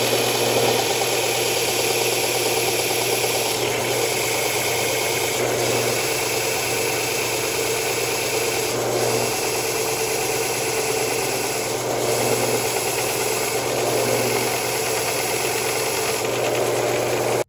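Stationary belt sander running with wood pressed against the moving belt, sanding the end of a block. The sanding sound shifts every few seconds as the block is moved back and forth to different parts of the belt and eased off to keep the wood from heating up and burning. It cuts off suddenly at the end.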